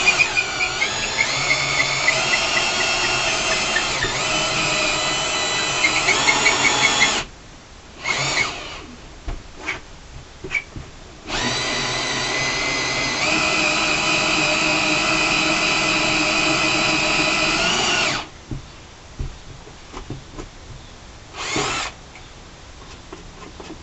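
Power drill boring a hole for wiring: two long runs of several seconds each, the second one speeding up partway through, separated by a stop with a short trigger burst and a few clicks, and one more short burst near the end.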